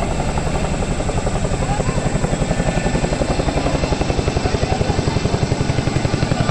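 Boeing CH-47 Chinook tandem-rotor helicopter running, its rotor blades beating in a fast, even pulse that becomes more pronounced about two seconds in.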